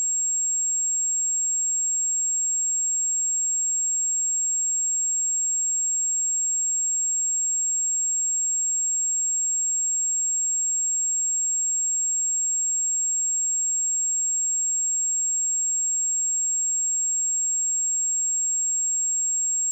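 A single steady 7556 Hz sine-wave test tone: one constant high-pitched whistle, unchanging in pitch and level.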